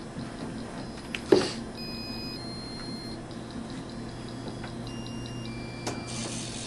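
Small Boe-Bot robots starting up: a sharp knock about a second in, then faint short high-pitched electronic beeps, a click, and a soft whir starting near the end, over a steady low hum.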